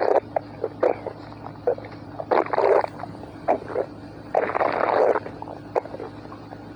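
Human stomach growling and gurgling in irregular bursts, with short pops and squelches between them; the two longest gurgles come about two and a half seconds in and again around four and a half to five seconds.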